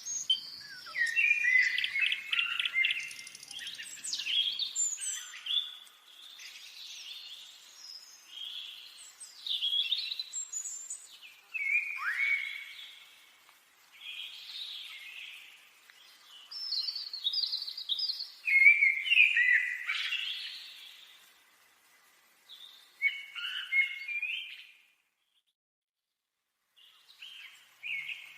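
Several forest songbirds singing, a busy overlapping mix of chirps, short trills and whistled phrases, one after another. The sound drops out completely for about two seconds near the end, then the singing resumes.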